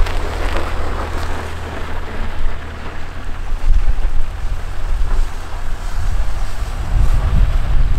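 Wind buffeting the microphone, a loud, gusty low rumble that swells twice, over the engine of a van driving slowly away across packed snow.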